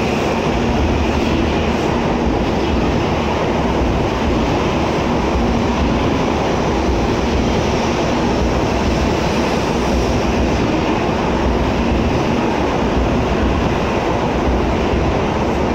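N700A Shinkansen train pulling out of the platform, its cars running past with a loud, steady rumble of wheels and running gear.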